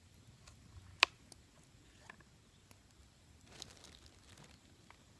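Knife cutting a vegetable on a cutting board: a few sharp knocks of the blade against the board, the loudest about a second in, with softer cutting sounds between.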